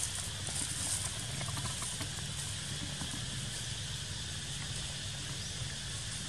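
Steady outdoor forest ambience: a constant high hiss over a low rumble, with a few faint ticks and rustles.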